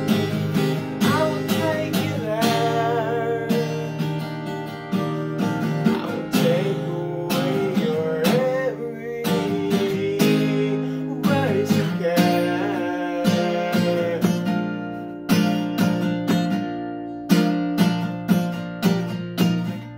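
Acoustic guitar strummed and picked in a song's instrumental passage, with sharper, accented strums coming about every half second over the last few seconds.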